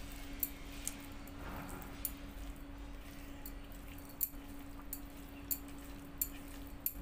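Fingers mixing rice and chicken curry on a steel plate: soft wet squishing with about seven short sharp clicks of fingers against the metal, over a steady low hum.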